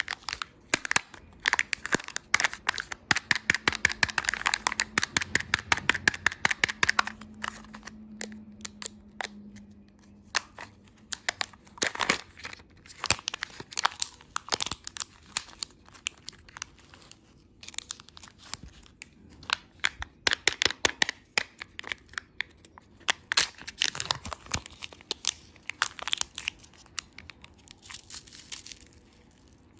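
Plastic candy-toy packaging being crinkled and torn open by hand. Dense crinkling for the first several seconds, then scattered clicks and rustles.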